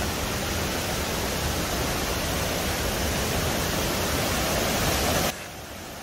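Steady rush of a waterfall. It cuts off abruptly about five seconds in, leaving a quieter hiss.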